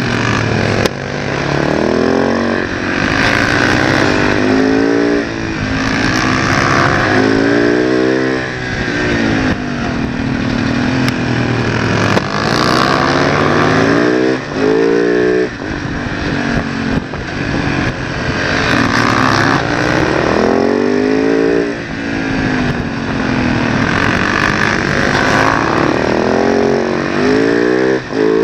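Supermoto motorcycle engine heard from a camera mounted on the bike. It revs hard and rises in pitch through the gears on the straights, then drops back as the rider shuts off for corners, several times over.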